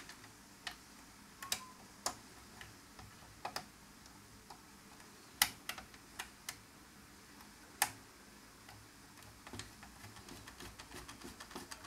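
Small replacement screws being fitted into a radio's chassis with a screwdriver: scattered light metallic clicks, then a quick run of small ticks near the end as a screw is driven in.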